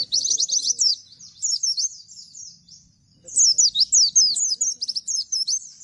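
White-eye (pleci, Bustomi type) singing its rapid 'nembak' song: fast runs of high, sharply sliding notes. There is a dense burst at the start, softer twittering from about a second in, then a second dense burst from about three to five seconds in.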